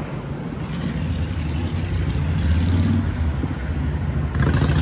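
Road vehicle running close by: a low engine hum that swells after about a second, with a louder rush of road noise coming in near the end.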